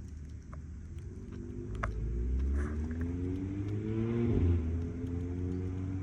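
A car's engine accelerating, its pitch climbing steadily, dropping about four seconds in and then climbing again.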